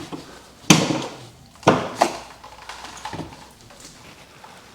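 A few sharp knocks and clunks of hard parts being handled, the loudest about a second in and another near two seconds, with a fainter one later.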